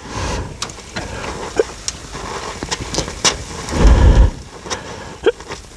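Oxy-acetylene welding torch hissing as it welds a sheet-steel patch, with a busy crackle of sharp pops and snaps from the weld. A loud low rumble comes a little before four seconds in.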